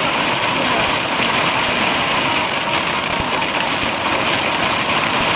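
Hail pelting a vehicle's roof and windshield in a dense, unbroken clatter, heard from inside the cabin.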